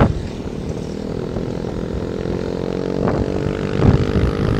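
Motor scooter engine running steadily at cruising speed, its hum heard clearly while the wind noise on the microphone drops away. Short wind gusts come in near the end.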